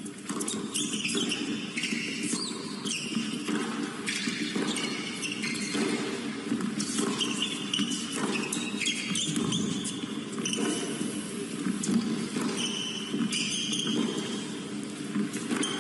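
Tennis rally on an indoor hard court: the racket strikes the ball again and again, a sharp pop every second or two, with short high squeaks of shoes on the court surface between shots.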